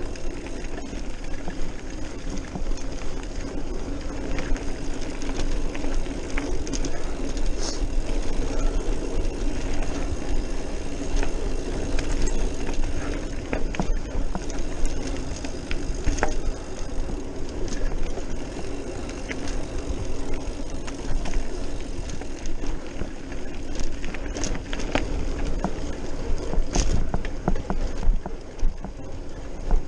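Trek Marlin 5 hardtail mountain bike descending a dirt fire road at speed: a steady rumble of knobby tyres on packed dirt and gravel, mixed with wind rushing over the microphone. Scattered sharp clicks and rattles come from the bike jolting over bumps.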